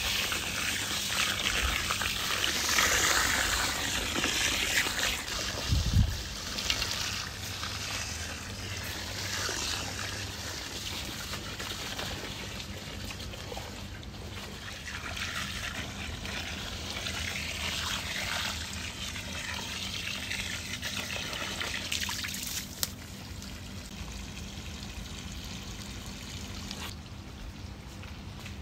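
Water pouring and trickling, with splashing that comes and goes as rice is washed. There is a dull thump about six seconds in.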